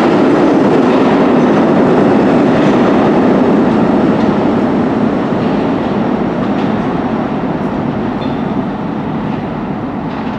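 New York City Subway R-32 train pulling out of the station into the tunnel, its running noise slowly fading as it moves away.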